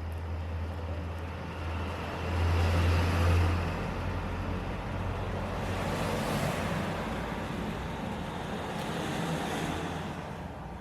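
Background road traffic: a steady low hum under a rushing noise that swells and fades a couple of times as vehicles pass.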